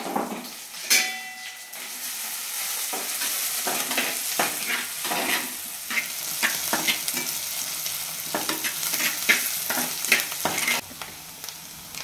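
Chopped onions and green chillies sizzling in hot sesame oil in a clay pot, stirred with a spoon. There is a steady frying hiss with repeated scraping strokes against the pot, and a knock at the start and another about a second in. The hiss drops away about eleven seconds in.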